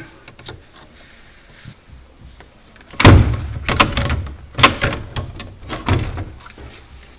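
Plastic knocking and clattering as a refrigerator's light diffuser is pried out and handled: a loud knock about three seconds in, then several more over the next three seconds.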